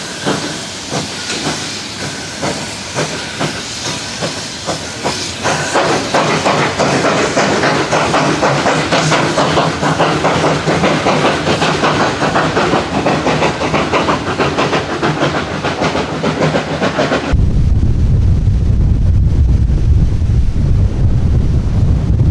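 Steam locomotive working under power: a rhythm of exhaust chuffs with steam hiss, growing louder and quicker about six seconds in. Near the end it cuts off suddenly to low wind rumble on the microphone.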